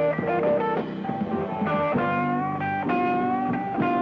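Live electric blues band playing, with electric guitar notes to the fore, some of them bent.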